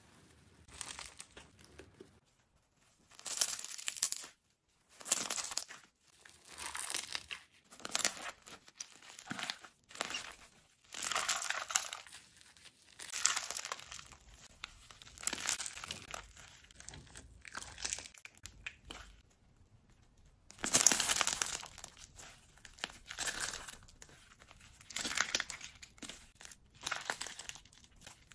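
Jelly slime being worked by hand in repeated strokes, each giving a short burst of noise with fine clicks in it, about one every one to two seconds; the loudest comes about three-quarters of the way through.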